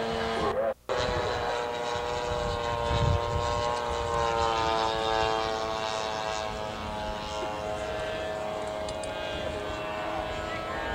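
Radio-control model airplane engine droning, its pitch sinking slowly over several seconds. The sound cuts out completely for a moment just under a second in, then resumes.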